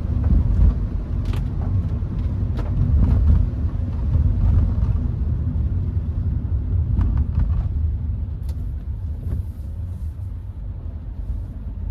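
Cabin noise of a Hyundai HB20 1.6 automatic driving on wet streets: a steady low road rumble, with a few short knocks from a loose child seat rattling in the back.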